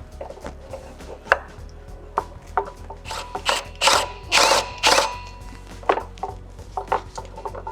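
Hand tools clicking and knocking on metal parts while a motorcycle's front wheel and axle are refitted, in a run of short irregular strokes that come thicker and longer in the middle. Light background music underneath.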